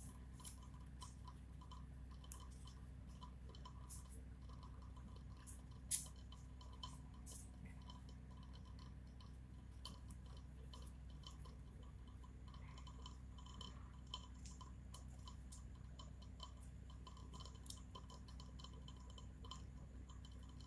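Faint room tone with a low steady hum and scattered small ticks and clicks, with one sharper click about six seconds in.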